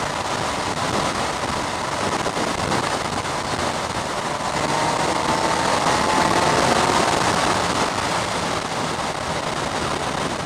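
Kawasaki Z1000SX motorcycle at highway speed: steady wind rush over the microphone mixed with tyre noise on wet asphalt. A faint tone sinks slightly in pitch in the middle as the noise swells a little.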